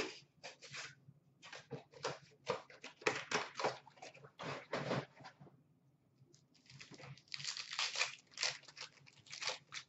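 Hockey card pack wrappers being torn open and crinkled by hand. The crackling comes in two irregular spells with a short pause a little past the middle.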